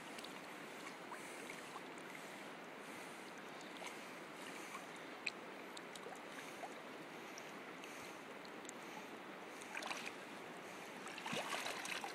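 Steady rush of a shallow river's flowing current, with a few light splashes near the end as the water is stirred around a steelhead held in it.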